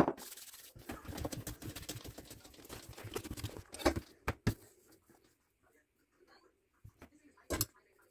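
Hand rolling a ball of bread dough on a kitchen countertop: a sharp knock at the start, then about three seconds of soft patting and rubbing, with two more knocks around four seconds in and another near the end.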